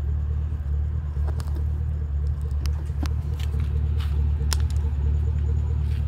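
A steady low rumble with scattered light clicks and taps.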